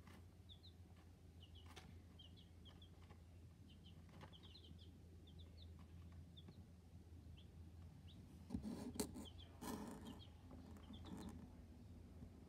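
Young chicks peeping faintly: short, high chirps scattered throughout. Several bouts of louder rustling come about two-thirds of the way in.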